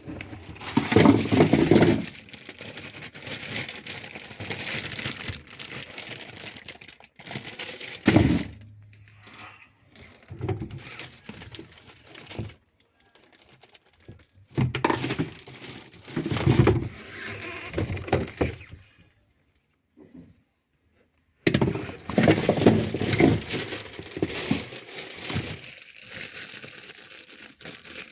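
Handling noise from unboxing: packaging crackling and crumpling in irregular bursts, with a few sharp cracks and knocks.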